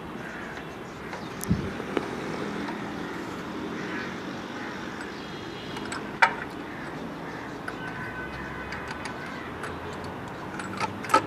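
Hand tools clinking on the open cylinder head of a Caterpillar 3412 diesel engine: a few sharp metal clicks, the loudest about six seconds in and several more near the end, over steady background noise.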